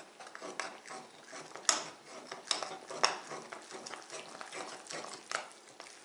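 A metal spoon stirring flour and a little water in a bowl: irregular scraping with a few sharper clinks of the spoon against the bowl.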